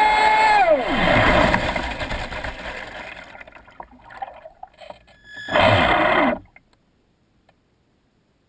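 Traxxas Spartan RC speedboat's brushless electric motor whining at speed, then throttling off about a second in: the whine drops sharply in pitch and gives way to a fading wash of water against the hull as the boat slows. A short, loud blip of the motor comes about five and a half seconds in, then it falls nearly silent.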